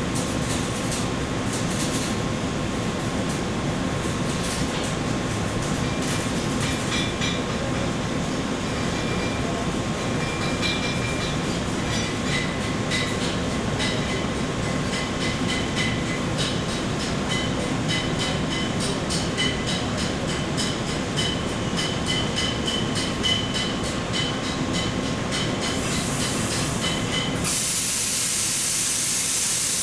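Welding in progress: a steady, dense crackling. Near the end it gives way abruptly to a loud, even hiss.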